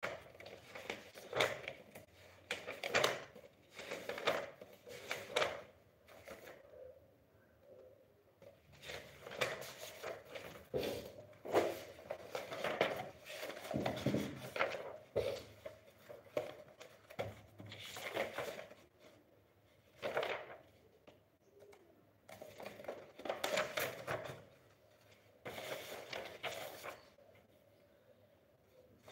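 Loose sheets of paper being shuffled and leafed through by hand, in repeated rustling bursts with short pauses between.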